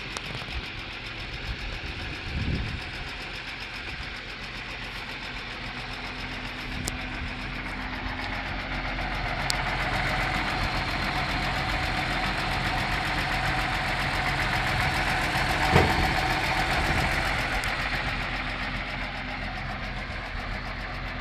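1949 Dodge truck's flathead straight-six engine idling steadily, heard louder for several seconds in the middle, close to the open engine bay. A brief thump comes about sixteen seconds in.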